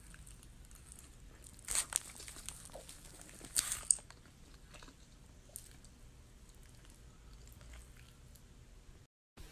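Mouth sounds of biting into and chewing a California burrito in a flour tortilla: two louder bites about two seconds in and again near four seconds, then quieter chewing.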